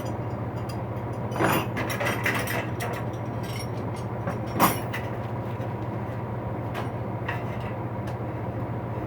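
Metal wrenches clinking against each other as they are handled, several clinks in the first five seconds, over a steady low hum.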